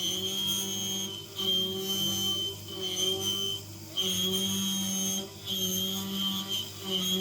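Home-built cast-iron CNC milling machine at work: a high whine over a low hum, breaking off and starting again every half-second to second and a half as the cutter moves through its passes.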